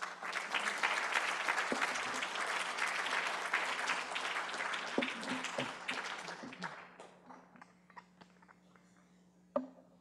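Audience applauding, starting abruptly and dense for about six seconds, then thinning to scattered claps and dying away. A single sharp knock sounds near the end.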